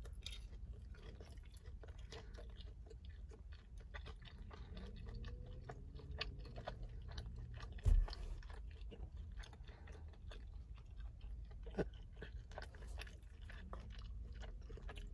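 A person chewing a mouthful of honey chicken close to the microphone, with many small mouth clicks. One louder thump comes about eight seconds in.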